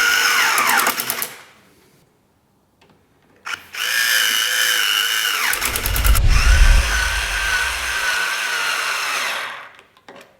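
Small 3.6 V cordless screwdriver motor whining in bursts. It winds down and stops about a second in, starts again a couple of seconds later, drops in pitch with a low rumble midway, then runs steadily and stops near the end.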